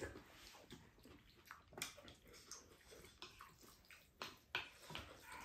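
Spoons tapping and scraping against ceramic bowls while curry and rice are scooped up and eaten, in scattered short clicks with soft eating sounds between them.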